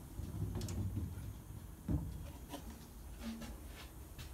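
Scattered handling noises: light knocks and clicks against the mower's metal deck, with a louder thump about two seconds in.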